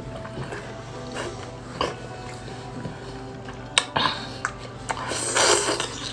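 Wet mouth sounds of slurping and sucking in spicy chili-coated noodles: scattered sharp smacks and clicks, then a long, loud slurp about five seconds in. Soft background music plays underneath.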